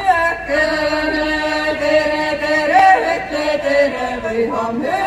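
A group of voices singing in a chant-like Seto folk style, holding long drawn-out notes that shift in pitch a few times.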